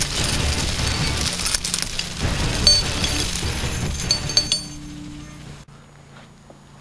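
Music with a bass beat, with a heavy rusty chain clinking and rattling as it is dragged across gravel. Both stop about five seconds in, leaving only faint room sound.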